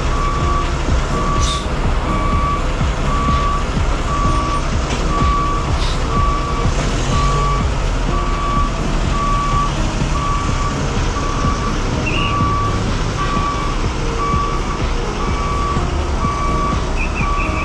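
A vehicle's reverse-warning beeper sounding about once a second, steady and evenly spaced, over the low rumble of bus engines idling.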